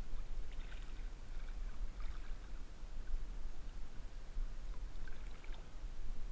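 River water sloshing and splashing right against a camera held at the surface during a swim, over a constant low rumble. The splashes come in patches about half a second in, around two seconds in and again around five seconds.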